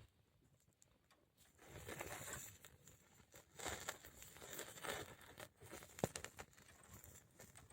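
Quiet, irregular handling noises: scuffs and rustles of things being moved about, starting about a second and a half in, with one sharp click about six seconds in.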